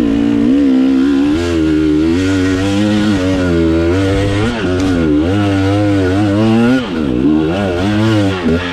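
KTM 300 XC-W's two-stroke dirt bike engine revving hard under load on a hill-climb attempt, its pitch rising and dipping unevenly with the throttle. Near the end the revs drop away sharply.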